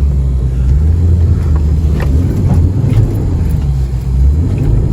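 Traxxas Slash 2WD radio-controlled truck driving up a hill: a steady low rumble with a few short clicks about two to three seconds in.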